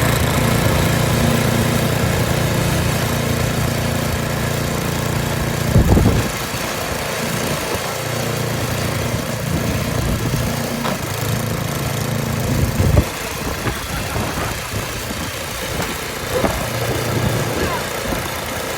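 An engine running steadily with a low hum, broken by two thumps about six and thirteen seconds in.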